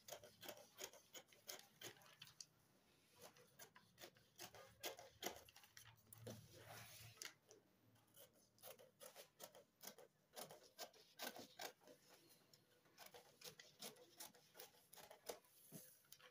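Scissors cutting through pattern paper: a long run of faint, irregular snips with the paper rustling.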